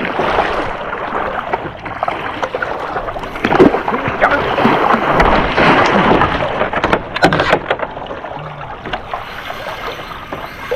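A sea kayak being paddled through choppy water: paddle blades splashing and water washing against the hull, with a few sharp knocks about two-thirds of the way through.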